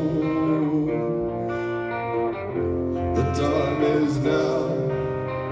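A live rock band playing, with electric guitars ringing out sustained chords over drums.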